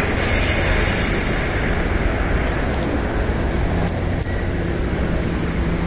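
Escalator running: a steady low mechanical rumble with a constant hum, and a few faint clicks about three to four seconds in.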